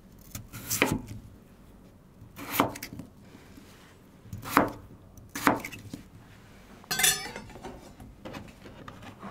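Chef's knife chopping a peeled raw potato into chunks on a bamboo cutting board: five separate cuts, one to two seconds apart.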